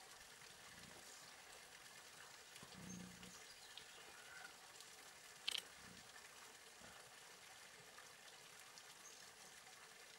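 Near silence: faint outdoor background, with a brief low sound about three seconds in and one short sharp click about halfway through.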